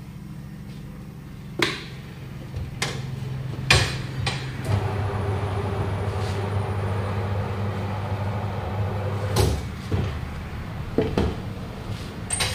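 Tyre changer at work: a steady low motor hum, stronger for several seconds in the middle, with sharp metal clanks and knocks about half a dozen times as the tyre is worked on the rim over the machine's turntable.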